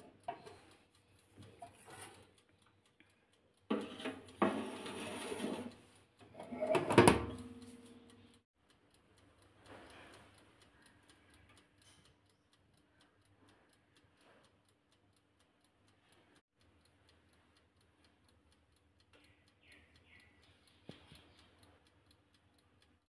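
An OTG oven being handled: clattering as its glass door and wire rack are worked, with one sharp loud knock about seven seconds in as the door shuts. After that, faint steady ticking from the oven's timer over a low hum while the heating elements cook the puris.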